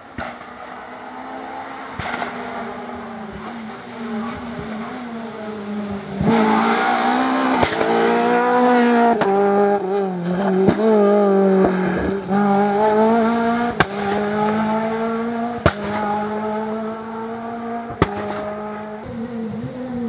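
Renault Clio R3 rally car's naturally aspirated 2.0-litre four-cylinder engine at full throttle. The pitch climbs and drops again at each sequential gear change, with sharp cracks at the shifts. It gets much louder about six seconds in as the car comes close, and eases off after about twelve.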